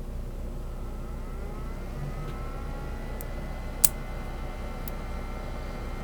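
Sparse metallic clicks of a hook pick and tension wrench working the pins of a Brinks padlock, the loudest a single sharp click about four seconds in. Under it a steady hum and a whine that rises in pitch during the second second, then holds.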